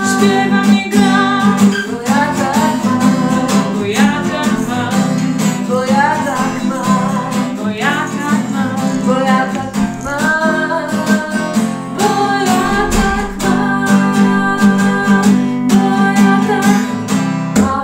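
Acoustic guitar strummed steadily, accompanying women singing a song.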